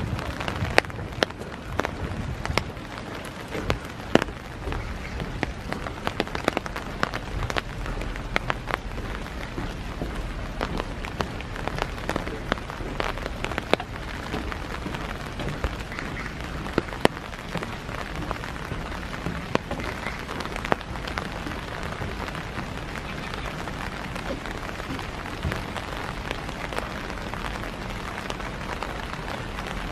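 Steady rain falling, a continuous hiss with many irregular sharp taps of drops landing close by.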